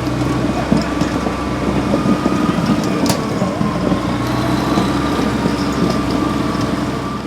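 Heavy diesel construction machine engine running steadily, with a steady high whine over it and one sharp click about three seconds in.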